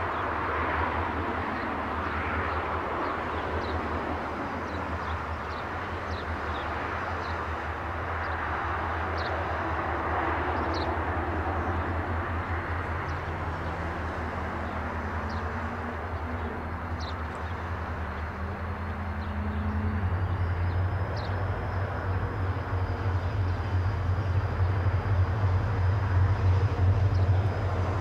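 Two ALF-class diesel-electric freight locomotives running light and approaching slowly, their engines giving a low pulsing note. A rising tone sounds for several seconds about midway, and the engines grow louder near the end as the locomotives draw close.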